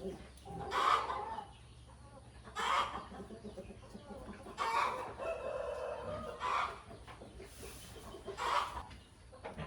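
Chickens clucking: about five short calls, roughly one every two seconds, with a longer held call near the middle.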